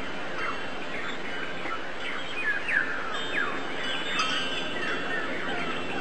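A chorus of many small birds chirping: short, falling chirps overlap one another over a steady background hiss.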